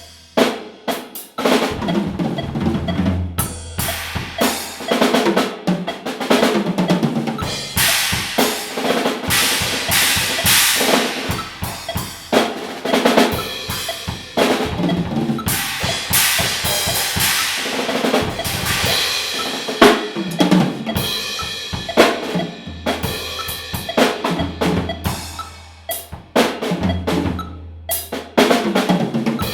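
Drum kit played solo: fast, irregular bass drum, snare and cymbal strikes with rolls and rimshots.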